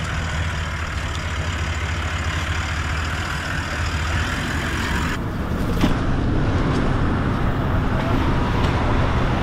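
Toyota LandCruiser 79 series engine running low and steady as the 4WD crawls down a steep, rutted dirt track. About five seconds in the sound changes abruptly to a closer, somewhat louder engine note.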